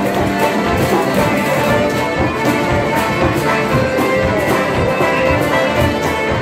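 Irish traditional session tune played together on fiddles, mandolins, banjo, button accordion, guitar and whistle, with a steady beat.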